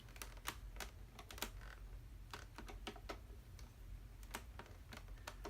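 Faint, irregular small clicks and taps of hard plastic and metal: a screwdriver fastening the screw of the battery compartment cover on a Nerf Rival Nemesis blaster.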